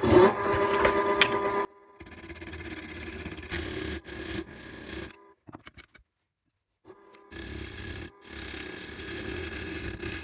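Wood lathe running while a turning tool is held against a spinning wild olive blank, cutting to widen a hole in its centre; the motor's steady hum sits under the scraping of the cut. It comes in three stretches, the first the loudest, separated by sudden breaks.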